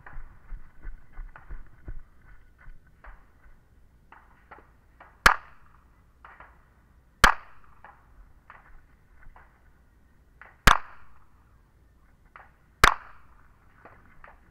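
Four handgun shots, spaced about two to three and a half seconds apart, each followed by a short echo. Between them come fainter scuffs and clicks of footsteps on dirt.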